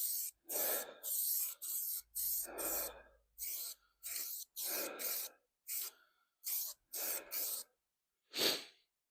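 Aerosol spray can of high build primer, sprayed in about a dozen short bursts of hiss with brief gaps between them.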